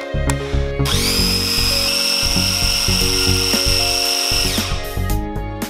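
Small electric food processor motor spinning up to a steady high whine and running for about four seconds as it purées avocado, then winding down near the end.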